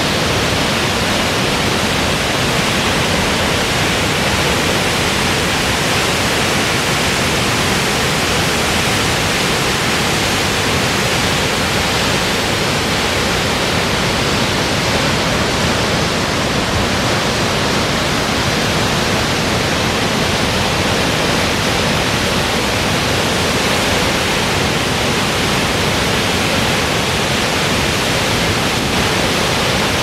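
A large waterfall's torrent crashing steadily into its pool, a loud unbroken rush of water with no change in level.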